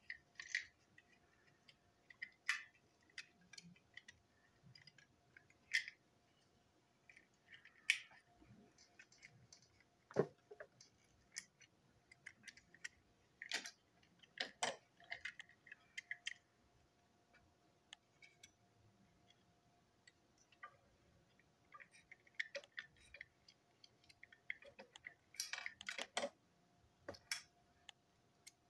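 Plastic parts of a toy train engine being handled and pulled apart by hand: scattered light clicks and taps, with a few louder knocks as pieces are put down on the table.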